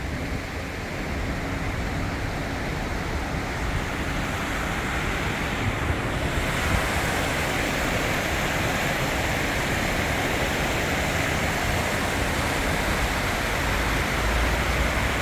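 Rushing water of the Esentai river pouring over small cascades, a steady roar that grows louder and brighter about six seconds in.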